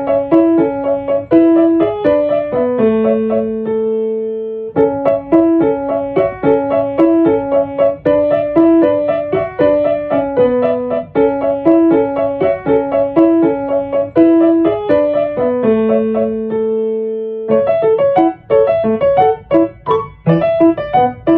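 Background piano music: a repeating melody over a steady accompaniment, pausing on a held chord twice, with a livelier passage starting near the end.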